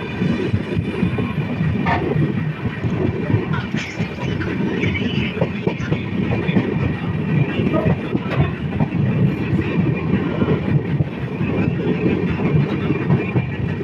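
Steady rumble of a moving passenger train heard from inside a carriage, wheels running on the rails, with a few scattered clacks.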